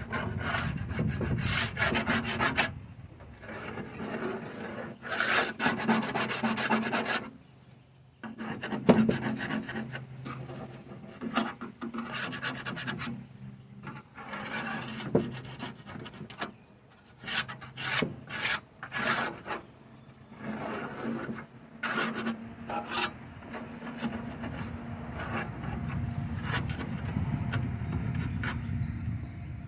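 A rigid plastic scraper tool scraping the solvent-sprayed inside of an old painted toolbox, lifting paint. It is a series of rasping strokes of uneven length, with a few brief pauses.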